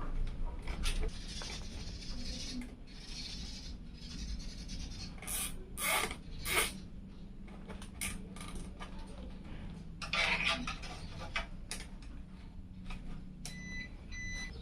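Hands handling and fitting computer parts, with rubbing and scraping and scattered light clicks. Two short high beeps sound near the end.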